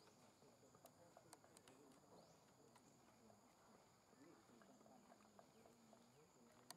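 Near silence: faint outdoor ambience with a few soft ticks.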